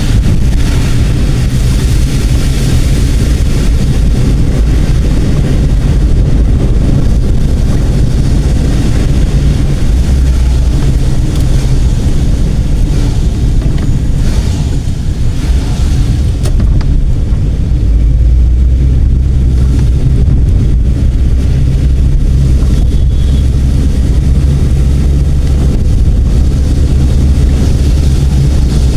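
A vehicle driving on the road: a loud, steady low rumble of engine and road noise.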